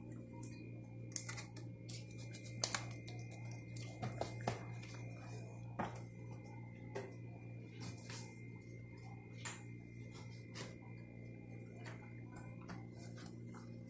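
Cloth in a rubber-gloved hand wiping glazed ceramic wall tiles: faint rubbing with scattered light clicks and knocks at irregular moments, over a steady low hum.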